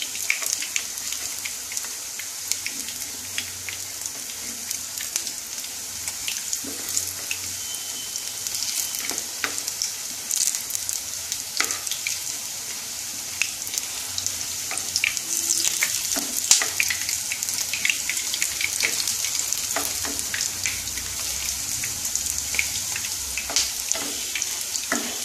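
Battered drumstick-flower pakoras deep-frying in hot oil: a steady sizzle with scattered crackling pops. A wooden spatula turns them in the pan.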